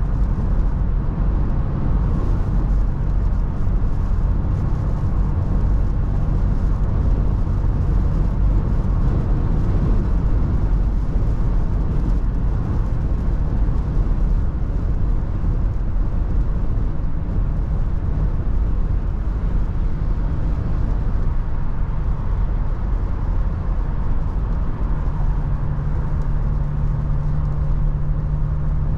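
Steady low rumble of a Toyota FJ Cruiser driving at speed, with road and wind noise in heavy wind. A steady low hum joins near the end.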